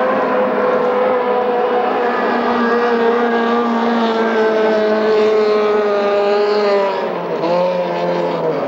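Three-point hydroplane racing boat's engine running at high revs as it speeds past, its note sagging slowly in pitch, then dipping and shifting to a lower note about seven seconds in.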